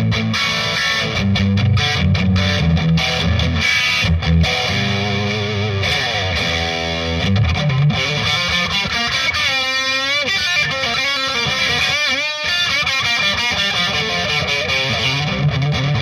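Overdriven electric guitar through a Marshall DSL40C tube combo on its green crunch channel, its tubes pushed into saturation by a Timmy boost pedal, heard through a Celestion Cream Back speaker. Chunky low riffing in the first half gives way to lead lines with string bends and vibrato about ten seconds in.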